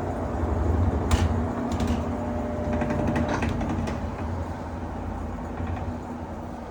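Amana top-load washer's drive motor and basket running in the diagnostic high-speed spin test, a steady low mechanical hum with a couple of light clicks about a second in. The hum eases off gradually in the second half.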